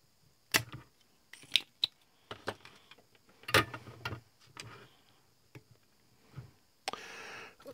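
Desoldering a connector from a small circuit board: a spring-loaded solder sucker fires with sharp snaps, about half a second and three and a half seconds in, with smaller clicks of the board and parts being handled between them and a short scraping hiss near the end.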